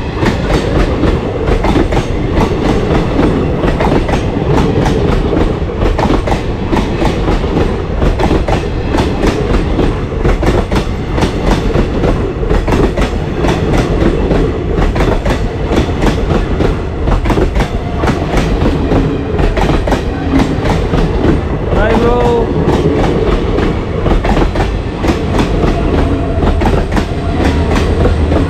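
Train passing close by, its wheels clattering steadily over the rails with a heavy low rumble.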